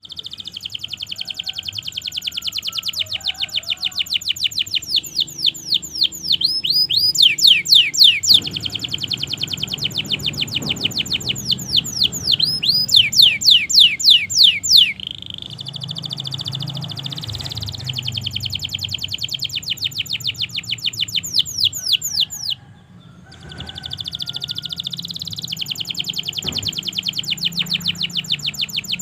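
Domestic canary singing long, unbroken song: rapid rolls of repeated high notes, about ten a second, switching between trill types. The song breaks off briefly about three-quarters of the way through, then resumes.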